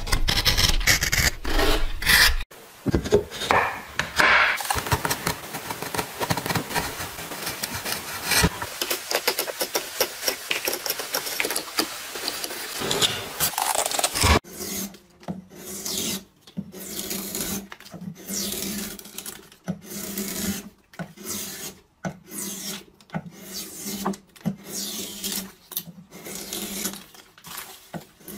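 Hand edge tools cutting wood. For the first half a chisel blade pares and shaves wood in a nearly continuous scraping run. After a break about halfway through, a carving gouge takes separate strokes, roughly one a second, out of a violin plate.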